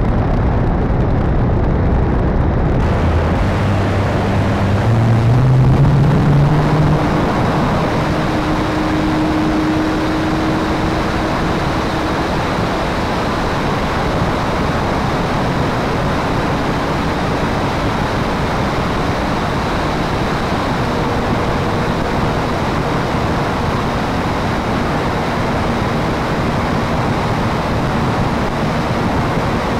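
P-51 Mustang engine and propeller running at high power on takeoff and climb, its pitch rising over the first several seconds and then holding steady in flight. Heavy wind rush on the nose-mounted camera lies under the engine throughout.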